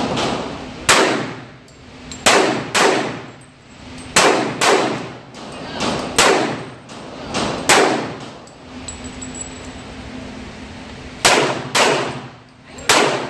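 Pistol shots fired in an indoor range, about ten in all, mostly in quick pairs, each with a ringing echo off the walls. There is a pause of about three seconds after the middle before the last few shots.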